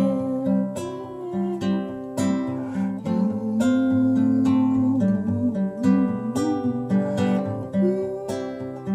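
Classical guitar playing an instrumental passage with no singing: plucked notes and chords, about two a second, each left ringing.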